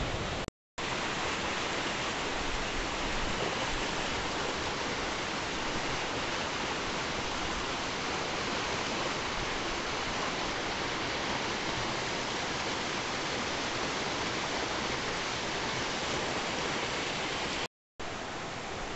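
Steady rushing of river water, an even hiss that cuts out to silence twice: briefly about half a second in and again near the end.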